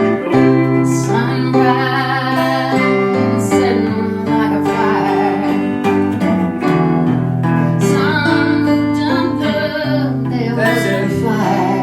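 Acoustic guitar strumming chords while a woman sings along.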